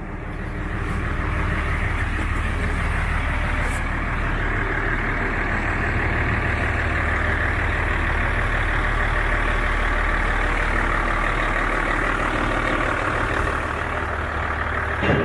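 A truck's diesel engine idling, a steady low drone that grows louder over the first second or two, then holds even.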